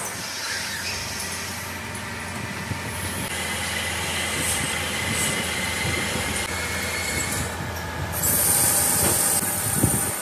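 Metal lathe running while its carbide tool turns a brake cylinder part in the chuck: a steady mechanical noise with a high whine and hiss from the cut. The sound changes abruptly a few times, and is brightest a couple of seconds before the end as chips fly off the workpiece.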